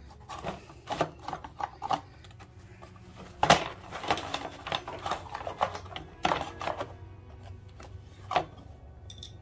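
Irregular clicks, knocks and clinks of hand tools and metal parts being handled during work on a mini bike engine. The loudest is a sharp knock about three and a half seconds in, with further bunches of clatter around six and eight seconds in.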